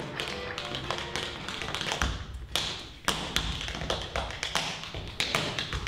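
Tap shoes striking a stage floor: a tap dancer beating out quick rhythms of sharp taps with occasional heavier heel strikes. Music fades out in the first second.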